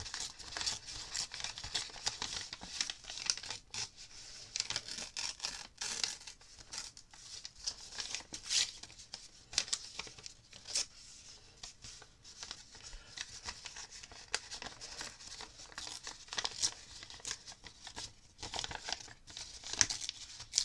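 Brown packaging paper being torn by hand into a shape: a run of short, irregular rips and crackles, with crinkling as the sheet is handled.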